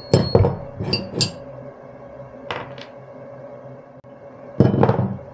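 Small steel pieces clinking as they are handled and set down on a workbench: a few sharp clinks, then a denser clatter near the end, over a steady low hum.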